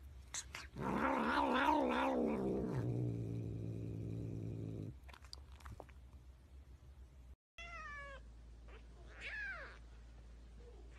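A domestic cat's long, wavering yowl, about four seconds, its pitch wobbling before it sinks low and cuts off. Later, a second cat gives a few short meows.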